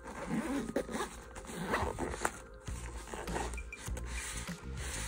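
Zipper on a fabric tech organizer case being pulled closed in several short rasping strokes, with the case being handled.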